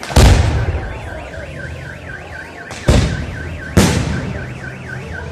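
Fireworks shells bursting overhead: three loud bangs, one right at the start and two close together near the three-second mark, each trailing off in a low rumble. Under them a car alarm's siren warbles, rising and falling several times a second.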